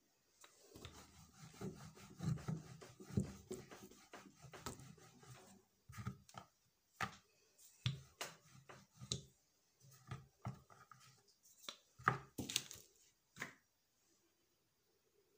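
Rolling pin working paratha dough on a round wooden rolling board: about five seconds of continuous rolling and rubbing of wood on wood, then a run of separate knocks and short strokes as the dough is rolled and moved on the board.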